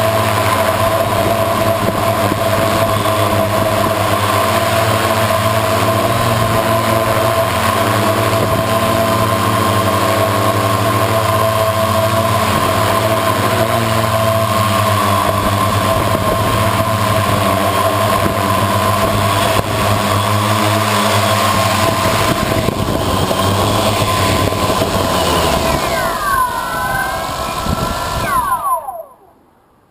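Electric motors and propellers of an FPV multicopter, heard close from the onboard camera, running with a steady whine. Near the end the craft sets down, the pitch falls and the motors cut off abruptly.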